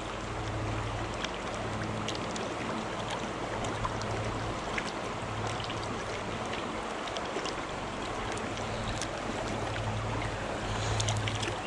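Shallow creek water running and rippling around a fallen log, a steady rushing noise with a few faint clicks scattered through it.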